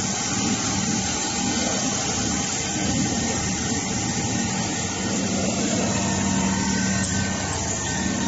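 Richpeace large-format precision sewing machine running, its gantry-mounted sewing head stitching as it travels over the frame: a steady mechanical running noise with a constant low hum.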